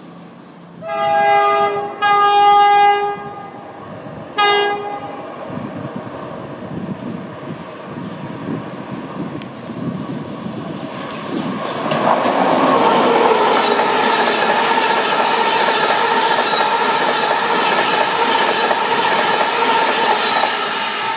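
An LNER InterCity 225 electric train sounds its two-tone horn in two long blasts and then a short toot. It then draws near and runs close past, its rumble and wheel clatter rising and holding loud with a steady electric whine.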